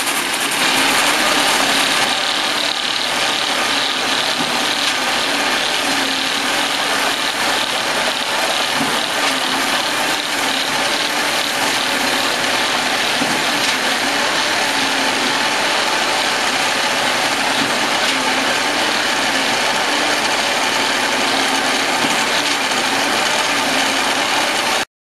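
Truss vibrating screed running over fresh concrete, a steady mechanical rattle that goes on without pause and cuts off suddenly near the end.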